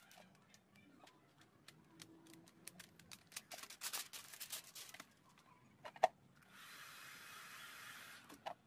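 Clear plastic film crinkling and crackling as it is pressed and stretched over a motorbike headlamp lens. A sharp click comes about six seconds in, then an electric heat gun blows steadily for nearly two seconds near the end.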